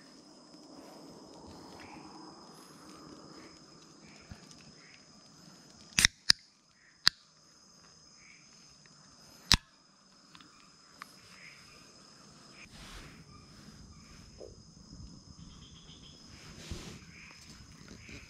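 Night insects in the jungle keeping up a steady high-pitched chorus, with a few loud sharp clicks near the middle, four in about three and a half seconds.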